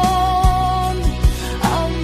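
Worship music: a sustained held melody over regular kick drum beats, with a cymbal crash near the end.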